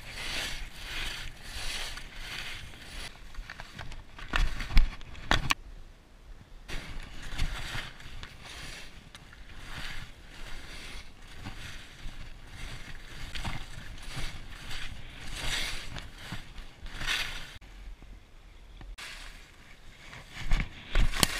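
Skis carving and scraping over packed snow through a series of turns, each turn a swelling and fading hiss. A few sharp knocks come about five seconds in and again near the end.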